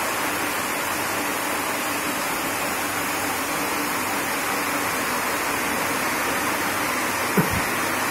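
Water streaming and splashing out of a white-pepper making machine as it washes and peels pepper in its nylon-brush drum, pouring with the wet pepper into a basin: a steady rush of water. A single short knock comes near the end.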